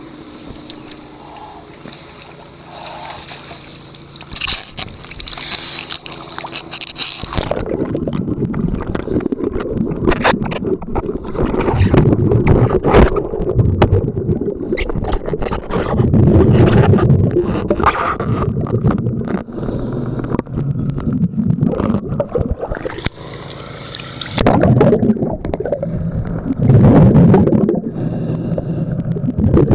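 A quiet steady hum, then about seven seconds in the sound turns to loud, muffled underwater rumbling and bubbling. The bubbling swells in bursts every few seconds, the exhaust bubbles from a diver's surface-supplied helmet.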